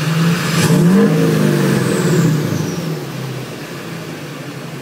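2006 LBZ Duramax 6.6 L V8 turbodiesel revved up from idle and let back down, with its smoke switch engaged. The revs climb about half a second in, hold for roughly two seconds, then fall back to idle, with a faint high whistle dropping in pitch as the revs come down.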